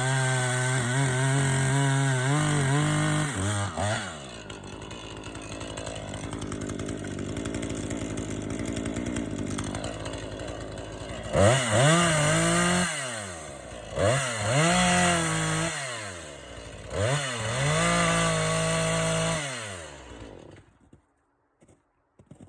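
Two-stroke chainsaw running at full throttle, then dropping to idle, then revved up and let back three times before it is shut off about twenty seconds in.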